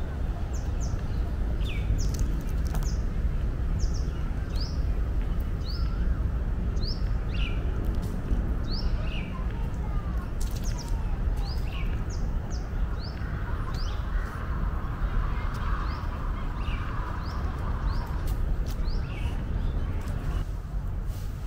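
A bird calling over and over in short, high notes that slide downward, about one or two a second, over a steady low rumble.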